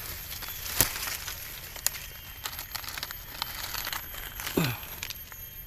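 Dry leaf litter crinkling and crackling, with scattered sharp clicks, as hands and a knife dig mushrooms out of the forest floor. A short falling tone sounds near the end.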